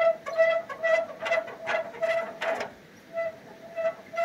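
The aluminium log lifter of a Logosol F2 chainsaw mill squeaking as it is forced down, a rhythmic, high-pitched squeal of about two or three squeaks a second with a few rasping scrapes between. The dry, stiff mechanism is short of lubricant.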